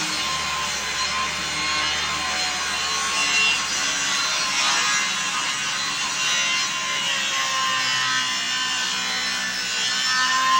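Power saw steadily cutting along a 1x12 wood board, making the 45-degree angled cut.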